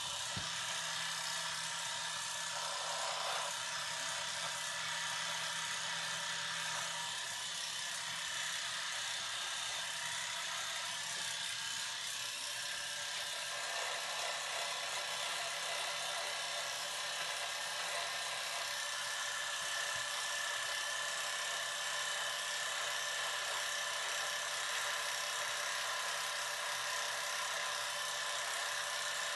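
Electric hair clippers buzzing steadily, with small shifts in tone as they work.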